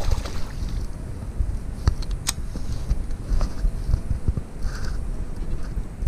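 Wind rumbling on an action camera's microphone, with a few sharp clicks and knocks about two seconds in and again about three and a half seconds in, during close-in handling of a hooked bass at the water's edge.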